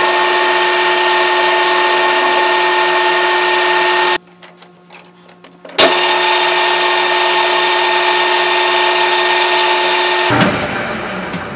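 Metal lathe running as it turns a length of rebar with a worn carbide cutting tool: a steady mechanical whine with cutting noise. It breaks off briefly about four seconds in, starts again with a click, and winds down near the end.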